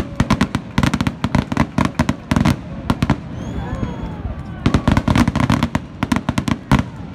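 Aerial firework shells bursting in quick succession: many sharp bangs in dense clusters, thinning out briefly around the middle before picking up again.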